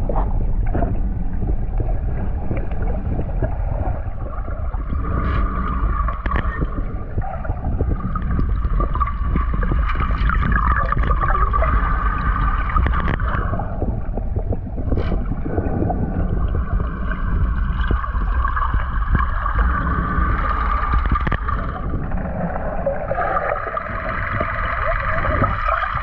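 Boat motor noise heard underwater: a steady low hum with gurgling water, its tone slowly shifting several times.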